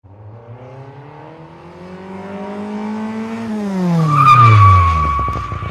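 Engine revving, rising in pitch for about three seconds and then dropping sharply. From about four seconds in there is a steady high squeal like skidding tyres, and the engine note breaks into slowing, uneven pulses near the end.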